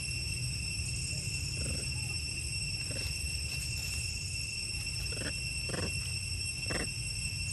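Long-tailed macaques giving about five short calls, bunched in the second half, with one squabbling over an infant.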